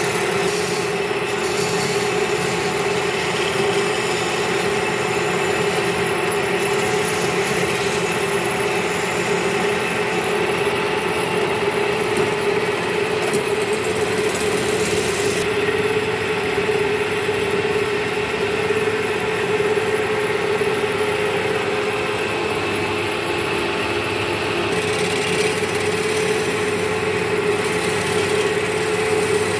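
Wood lathe running with a steady motor hum while a hand-held chisel cuts a spinning wooden table leg, giving a rough scraping hiss as shavings come off. The cutting hiss drops away for about ten seconds midway, then comes back.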